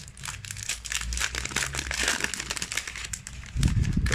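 Foil trading-card booster pack wrapper crinkling as it is handled, a quick run of small crackles.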